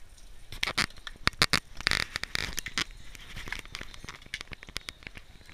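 Irregular scraping, rustling and clicking of jacket fabric rubbing against the microphone as the camera is jostled, densest in the first half.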